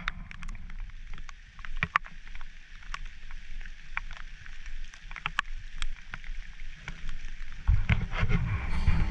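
Raindrops tapping irregularly close to the microphone, over a low wind rumble on the microphone. Near the end a louder low thudding comes in.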